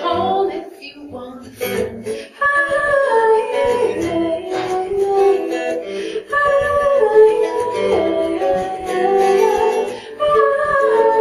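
A woman singing a held, gliding melody over a fingerpicked acoustic guitar, in a live duo performance.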